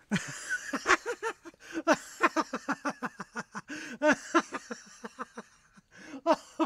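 A person laughing heartily: a long run of short ha-ha bursts, each rising and falling in pitch, with a couple of brief pauses for breath.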